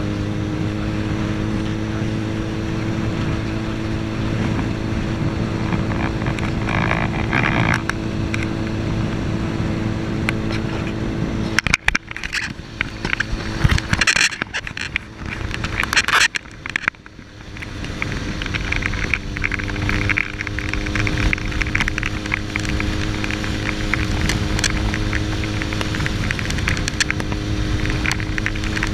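Suzuki GSX-R1000's inline-four engine running at steady cruising revs, heard from on the bike. About twelve seconds in, the sound breaks up into crackles and dropouts for several seconds, a fault in the recording, then the steady engine note returns.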